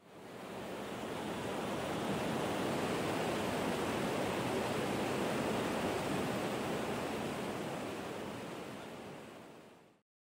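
Steady rushing of river whitewater, an even roar with no distinct events, fading in at the start and fading out near the end.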